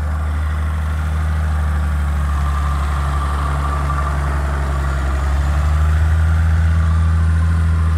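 An off-road SUV's engine running steadily under load as it climbs a sandy slope, getting a little louder about five or six seconds in.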